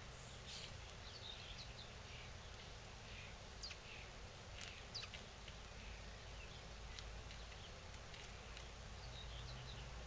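Faint, scattered short bird chirps over a steady outdoor hiss and low rumble.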